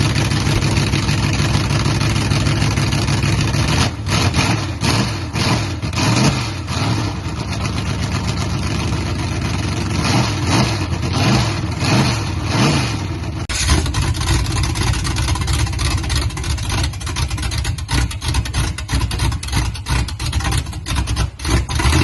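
1976 Chevy K20's engine running on open headers with no exhaust fitted: it idles, then is revved in a series of short blips. About halfway through the sound changes suddenly to a rougher, choppier engine note.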